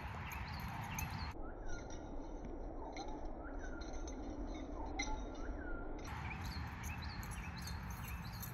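Small birds chirping over and over in short, quick calls, over a steady low rumble.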